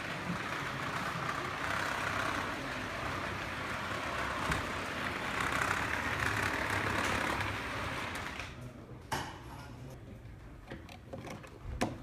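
Model train of coaches and a tender-driven Flying Scotsman locomotive rolling past on the layout track: a steady rushing rattle of wheels on rail that fades out about eight and a half seconds in as the train moves away, followed by a few sharp clicks.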